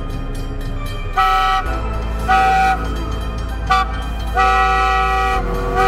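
Horn of the 1910 McKeen motor car sounding a series of blasts: two of about half a second, one very short, then a longer one of about a second, with another starting near the end. This is the long-long-short-long warning sounded for a road crossing.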